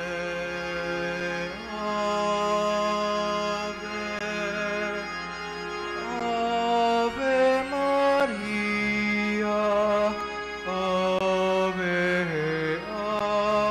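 Slow devotional hymn music, long held notes moving from one pitch to the next every second or two.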